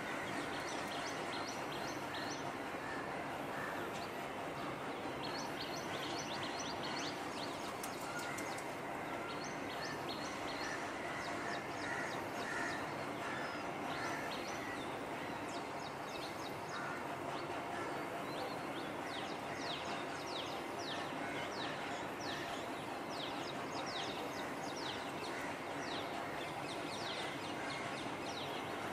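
Small birds chirping: quick runs of short, high chirps in repeated bursts, thickest in the second half, over a steady background hiss.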